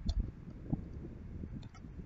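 Faint low background noise from the microphone, with a few soft scattered clicks.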